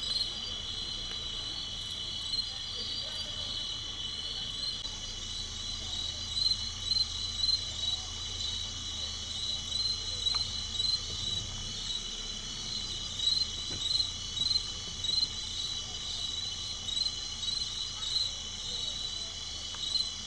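Night insect chorus of crickets: a steady high trill with loud pulsing chirps at about two a second, over a low steady hum.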